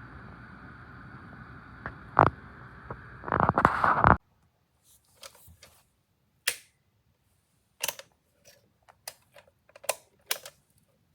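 Small electric space heater's fan blowing steadily, with a few clicks over it, then cutting off suddenly about four seconds in. After it stops there are scattered sharp clicks and taps of handling.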